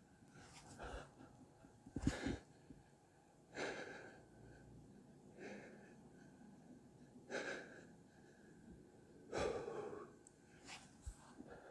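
A man breathing hard while holding a forearm plank, with a loud breath about every one and a half to two seconds.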